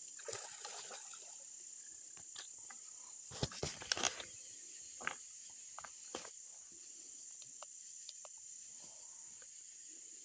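Steady high-pitched chorus of night insects, likely crickets, with scattered handling clicks and rustles, loudest in a cluster of knocks about three and a half to four seconds in.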